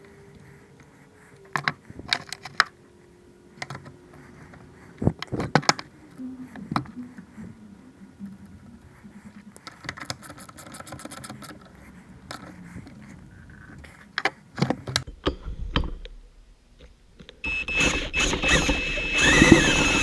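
Small metal tools and chainsaw ignition parts clicking, tapping and clinking as they are handled on a workbench. Near the end a louder, steady mechanical noise with a held high tone starts up.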